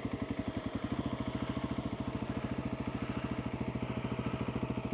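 2021 Husqvarna 701 supermoto's single-cylinder four-stroke engine, fitted with a Wings exhaust, running steadily at low revs as the bike rolls slowly on a dirt trail, with an even beat of about a dozen firing pulses a second.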